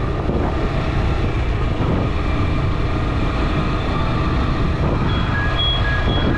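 Steady engine and wind noise from a motorcycle being ridden. Near the end, a few short electronic beeps sound.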